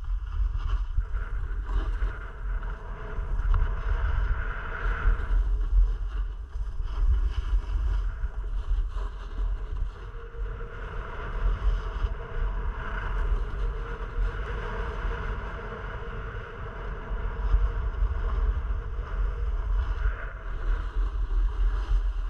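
Wind buffeting an action camera's microphone with a low, gusting rumble, over a steady hiss of sliding down a ski run on snow.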